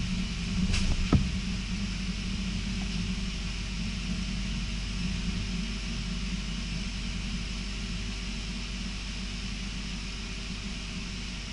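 Passenger train running at speed, heard from inside the carriage: a steady low rumble with a hiss of wheels on rail, broken by a sharp knock about a second in, then slowly getting quieter.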